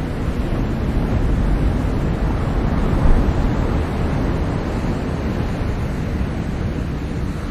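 Ocean surf: a steady wash of breaking waves, swelling to a peak about three seconds in and then easing off.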